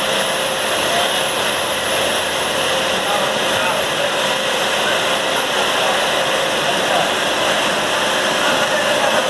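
Electric scallop cutting machine running steadily while cloth is fed through its cutting head: a constant motor whir with a faint steady hum in it.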